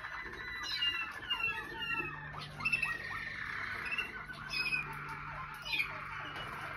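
Waterslager canaries singing: a continuous run of rapid trills and gliding notes, with a few louder notes standing out.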